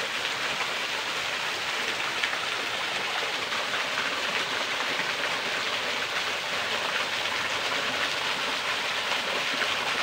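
Small waterfall splashing steadily into a shallow rocky pool, an even rush of water.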